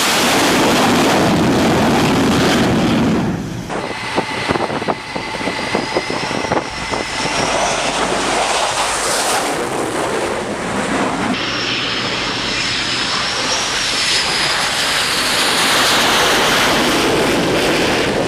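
Jet fighter engines running on an aircraft carrier's flight deck, a loud rushing noise with a high turbine whine that drifts in pitch. The sound changes abruptly about four and eleven seconds in, with a run of sharp clicks and knocks in between.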